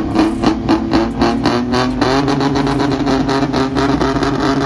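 Ford Ranger pickup's engine held at high revs after climbing, running steadily with a rapid, regular pulsing.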